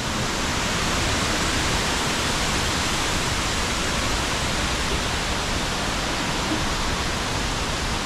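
Tall waterfall rushing close by: a steady, even rush of falling water.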